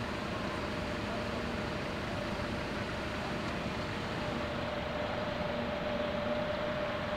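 Steady machinery drone with a constant whine over a broad rushing noise.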